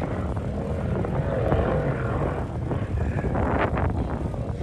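Off-road vehicle engine running steadily, with wind buffeting the microphone.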